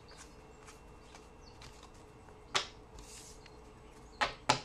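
Paper trading cards and their pack being handled: light rustling and ticking, with a sharp snap about two and a half seconds in and two more snaps close together near the end.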